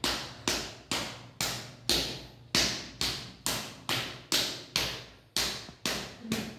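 A hand slapping a person's leg in a steady rhythm, about two sharp slaps a second, each fading quickly.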